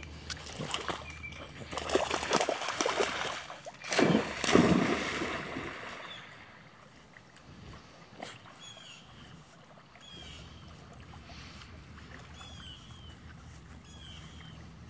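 Pond water splashing loudly for a few seconds as dogs swim through it. It then goes quieter, and a bird calls repeatedly with short curved calls.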